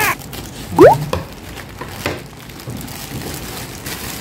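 Scissors snipping and plastic wrap rustling as a rubber hex dumbbell is cut free and lifted out of its cardboard box, with scattered crisp clicks. A short rising squeak about a second in is the loudest sound.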